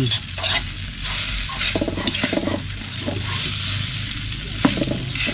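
A metal spoon stirring and scraping shredded young coconut around a hot metal wok, with irregular sharp scrapes and clinks against the pan over a steady cooking hiss.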